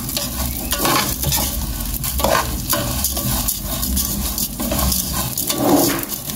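Fideo noodles and sliced onion sizzling as they fry in oil in a metal pot, while a metal spoon stirs and scrapes through them in repeated irregular strokes.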